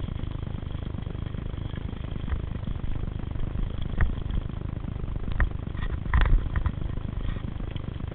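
Mountain bikes rolling along a dirt forest singletrack, heard from a riding camera: a steady low rumble of tyres and motion, with rattling knocks of the bike over bumps about four seconds in and a quick cluster of them a couple of seconds later.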